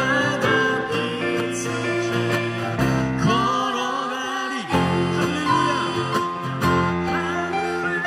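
Acoustic guitar strummed as the accompaniment to a man and a woman singing a Korean gospel praise song together.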